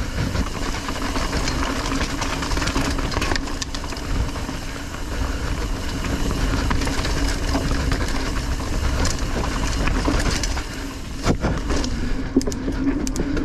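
Mountain bike riding along a forest trail: steady rumble of tyres and air on the bike-mounted camera, with a continuous buzzing tone from the bike and scattered sharp knocks and rattles over roots, a cluster of them near the end.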